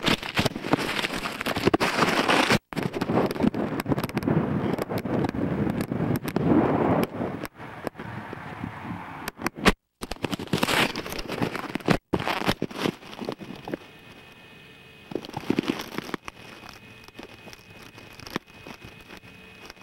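Wind buffeting and crackling on a kite-borne camcorder's built-in microphone, with rustling and knocks as the camera tumbles through grass and brush, cut by three brief total dropouts. After about two thirds of the way in it settles to a quieter crackle with a faint steady tone.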